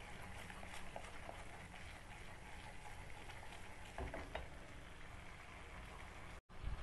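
Spice paste frying softly in oil in a non-stick pan, stirred with a wooden spatula that scrapes and ticks against the pan. There is one louder scrape about four seconds in, and a brief dropout near the end.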